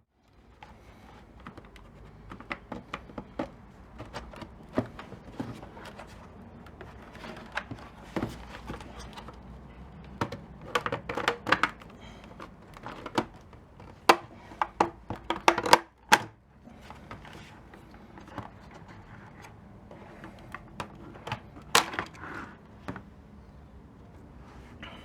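Plastic clicks, knocks and rattles of a welding helmet's headgear strap being worked loose and removed from the helmet shell, coming in irregular clusters.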